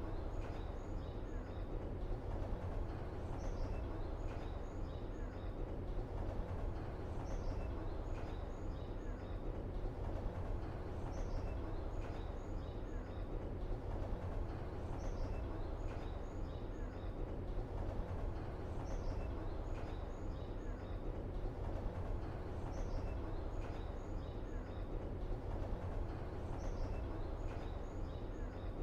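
Steady low ambient rumble with a short cluster of bird chirps that repeats the same way about every four seconds, like a looped background track.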